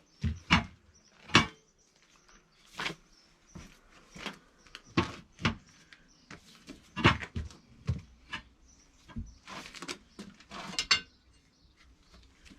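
Irregular sharp knocks and clatters of tools working a tractor tyre off its wheel rim, about a dozen spread unevenly with quiet gaps between them.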